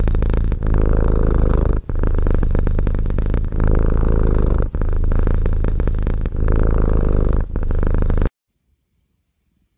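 A cat purring loudly and close, a steady pulsing purr broken briefly about every three seconds as it breathes. It stops abruptly about eight seconds in.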